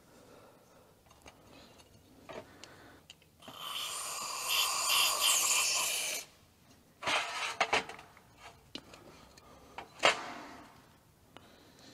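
Aerosol brake parts cleaner sprayed through a straw into a carburetor's passages: a steady hiss lasting about three seconds, then a few shorter spurts. A sharp knock about ten seconds in, a carburetor part handled against the metal pan.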